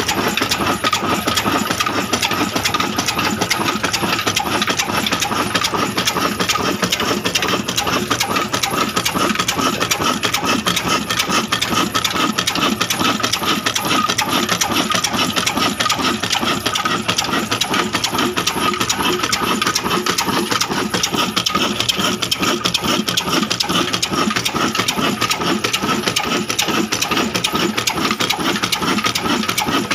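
Old black stationary diesel oil engine with a large flywheel running steadily, with a fast, even mechanical clatter and a steady high whine.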